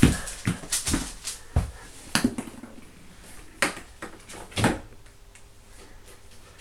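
A scatter of irregular knocks and thumps, the loudest at the very start and about eight in the first five seconds, from people moving about on foam floor mats and handling the camera.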